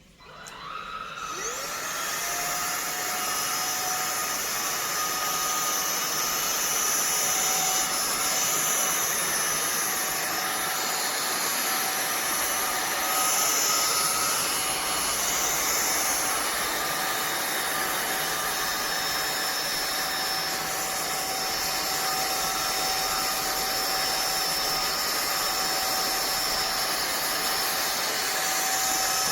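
INTETURE BP10 cordless stick vacuum switched on: its motor spins up with a rising whine over about two seconds, then runs steadily with a high whine over a strong rush of air.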